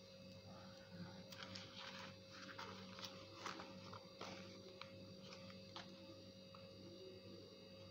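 Faint snips and rustles of large steel scissors cutting and trimming fabric, several quick snips in the first half and a few scattered ones later, over a steady low hum.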